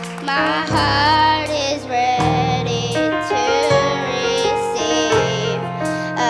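Gospel worship music: voices singing over piano or keyboard with sustained bass notes.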